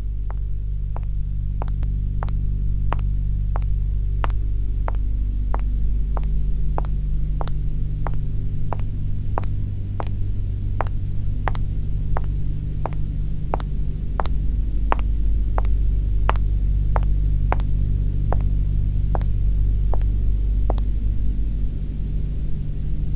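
High heels knocking in a steady walk, about two steps a second, over a low, steady droning hum.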